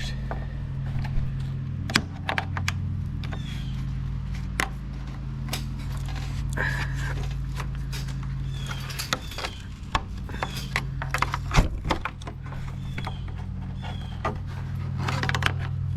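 Clips and plastic trim on a crash-damaged car front end being worked loose with a small pry tool: scattered clicks, knocks and short squeaks, with one sharper knock about twelve seconds in. A steady low hum runs underneath.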